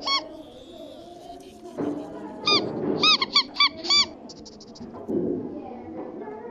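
High, short squeaks standing in for a cartoon character's talking: one squeak at the start, then a quick run of about six about halfway through. A low muffled murmur sits between them.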